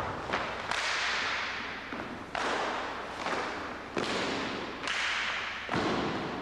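A series of about six sharp cracks, roughly a second apart, each trailing off over most of a second in a hiss.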